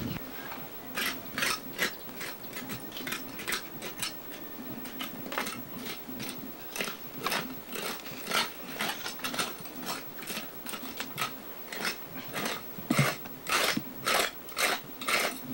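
Short, rasping scraping strokes on a stone slab, about two to three a second and irregular, as a mason works its edge by hand.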